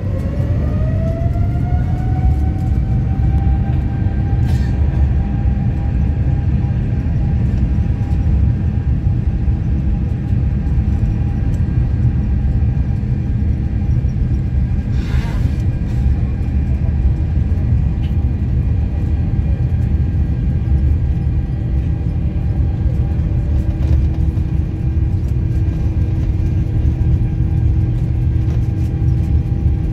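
Boeing 787 Dreamliner's jet engines heard from inside the cabin, spooling up to takeoff thrust: a whine that rises in pitch over the first few seconds and then holds steady, over a heavy low rumble, during the takeoff roll.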